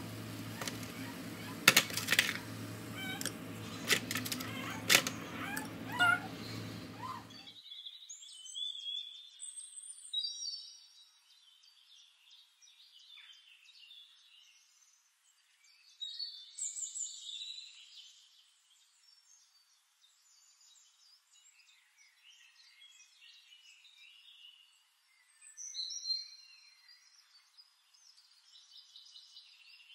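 Room sound for the first seven seconds or so: a steady low hum with several sharp clicks and knocks. Then an abrupt cut to a nature-sound recording of birdsong, high chirps and twitters in bursts with quieter stretches between.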